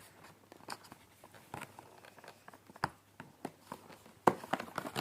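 Cardboard advent calendar door being opened and its packaging handled: scattered light taps, crinkles and rustles, with a sharper click a little after four seconds in.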